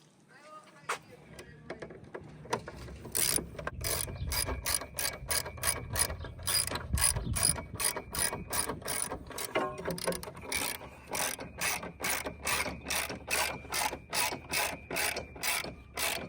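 Socket ratchet wrench clicking as a 10 mm fastener is run in: after about three seconds of quieter handling, a long, steady series of sharp ratchet clicks, about three a second.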